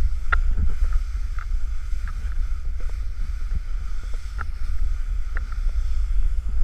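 Wind rumbling on an action camera's microphone during a snowboard run through powder, with the board sliding on the snow and a few small scattered knocks.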